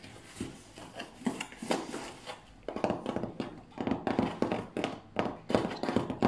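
Cardboard box flaps handled and flexed close to the microphone: scattered taps at first, then a dense run of crackles and creaks from about three seconds in.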